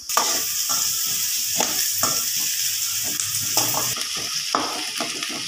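Chopped small onions sizzling in hot oil in a metal pan as they are sautéed towards translucent, with a spatula stirring them and scraping the pan in repeated irregular strokes over the steady sizzle.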